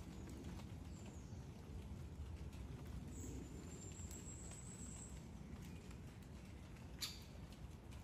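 Quiet outdoor ambience with a steady low rumble. A faint thin high whistle comes about three seconds in and lasts about a second and a half, and a single sharp click comes near the end.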